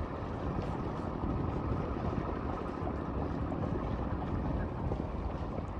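Steady low rumble of a 39-foot sport yacht's engines running as it cruises past, mixed with wind rushing on the microphone.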